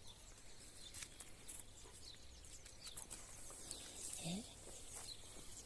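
Quiet farmyard with faint bird chirps and a short rising animal whine about four seconds in.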